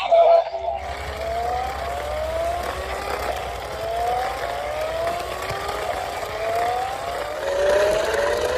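Electric remote-control toy making a rising whine that repeats about once a second, over a steady hiss and low hum.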